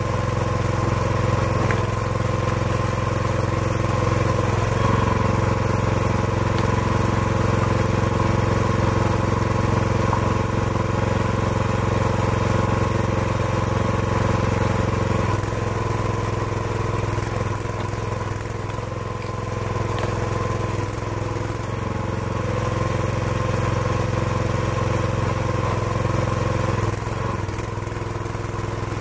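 Small gasoline engine running steadily, driving the hydraulic pump of a dual-cylinder log splitter. Its note and loudness shift a few times, about a second in, about halfway through and near the end, as the splitter is worked.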